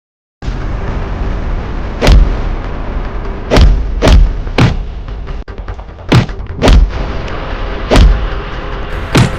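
A run of loud, sharp impact hits, about eight of them at irregular intervals, over a steady music bed after a moment of silence at the start.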